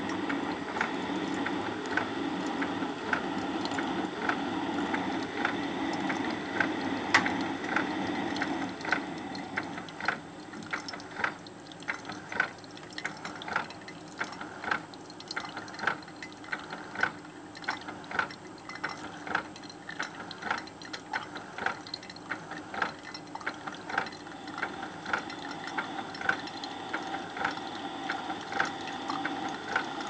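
Keurig 2.0 coffee brewer mid-brew: a steady gurgling, spitting noise that, about ten seconds in, gives way to a run of sharp drips and spits, roughly one or two a second, as the brew dribbles into the cup.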